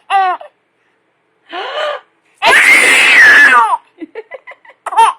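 A person sneezing in a drawn-out way: a short breathy 'ah' about a second and a half in, then a loud sneeze lasting over a second with a falling voiced tone. A baby's short giggles follow near the end.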